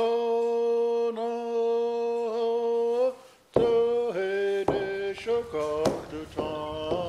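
A single voice singing a chant-like song in long held notes. It breaks off briefly about three seconds in, then goes on with shifting notes over a struck beat that comes roughly once a second.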